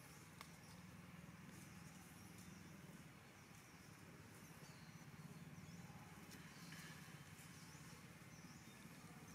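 Near silence: faint outdoor ambience with a low steady hum and scattered faint high chirps.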